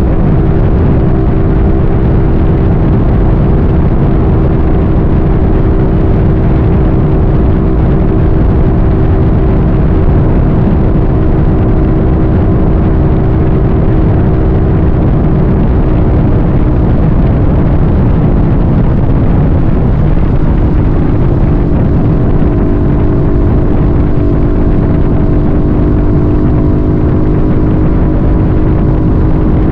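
A vehicle on the move: a steady engine hum over heavy wind and road rumble. The engine's pitch drops about two-thirds of the way through, then settles again.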